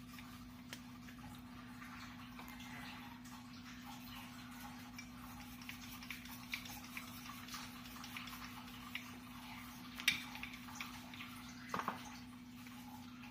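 Wooden rolling pin rolling out dough on a stone rolling board, with light scattered clicks and taps, a sharper knock about ten seconds in and another near the end. A steady low hum sits underneath.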